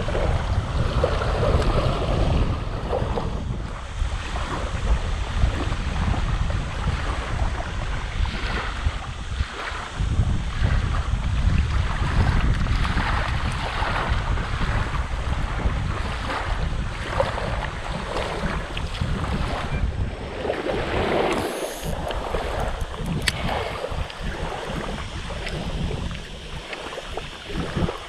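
Wind buffeting the microphone with a heavy low rumble, over small waves lapping and washing on the shoreline. The wind rumble eases about two-thirds of the way through.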